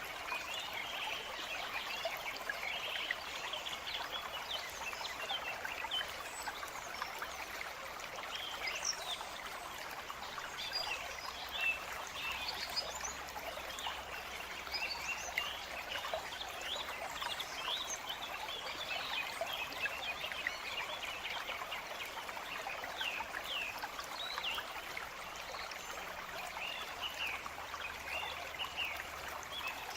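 A flowing stream trickling steadily, with many birds chirping over it throughout.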